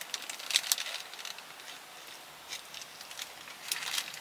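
Someone eating a cheeseburger close to the microphone: scattered crackling clicks and rustles as it is handled and bitten into.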